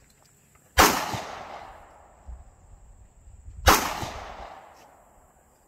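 Two shots from a Glock 19 9mm pistol, about three seconds apart, each followed by a long echo that fades away over a couple of seconds.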